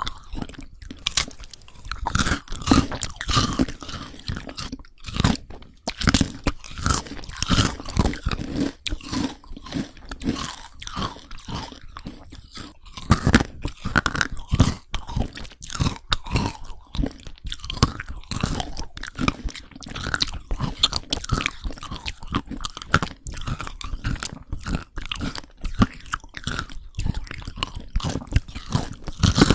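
Close-miked crunchy chewing and biting, a dense run of irregular crackles and crunches.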